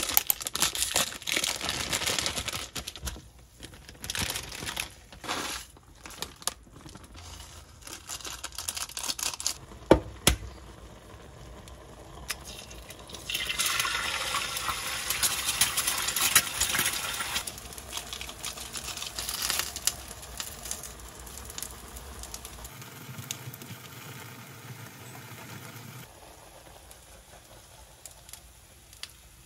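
Plastic Jjapaghetti instant-noodle packet crinkling and tearing as the noodle block goes into the pot, with a sharp knock about ten seconds in. Later come a few seconds of rushing hiss and quieter kitchen handling sounds.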